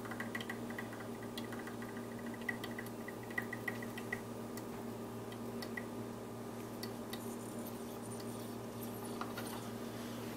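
Espresso machine's portafilter dripping its last hot water into a glass as it drains, faint small drips that come often for about four seconds and then thin out, over a steady low hum.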